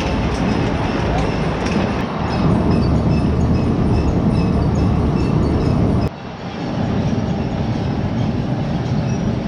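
Potato harvesting machinery running with a heavy, steady rumble and rattle and regular ticking. The sound cuts off abruptly about six seconds in and similar machine noise resumes.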